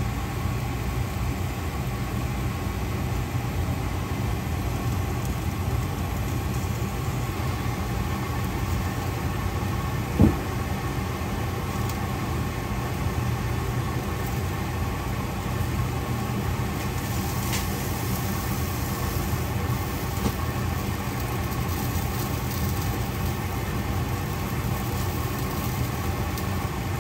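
Steady low mechanical hum, with one short squeak about ten seconds in.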